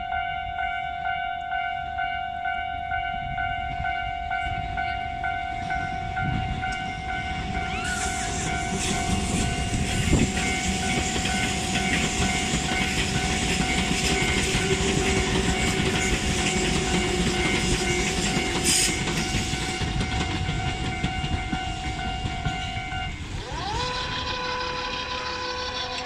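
Railway level-crossing warning bell ringing steadily while a Tobu 200 series limited express electric train rolls over the rails. Wheel and rail noise with clicks of the rail joints builds from about eight seconds in and dies away near the end, when the crossing alarm's tone changes.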